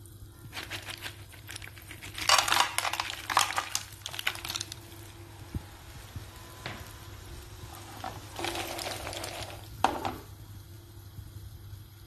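Butter and olive oil sizzling in a frying pan as mussels, clams and squid go in, with hard shells clicking and clattering against the pan in bursts about two to five seconds in and again near the end, and one sharp knock about ten seconds in.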